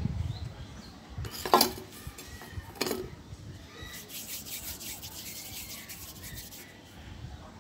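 Handling sounds as a ball of homemade salt-dough clay is rolled on a tabletop, a low rumble at the start; then two sharp knocks, about one and a half and three seconds in, and a few seconds of dry rubbing.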